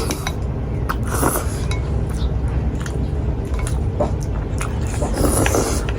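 Chopsticks tapping and clinking against a plate in scattered small clicks, over a steady low hum.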